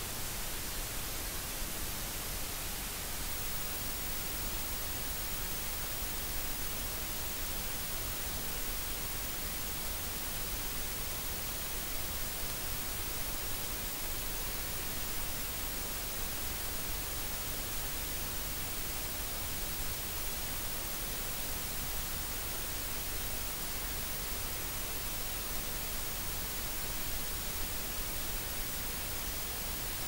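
Steady white noise: an even hiss that does not change.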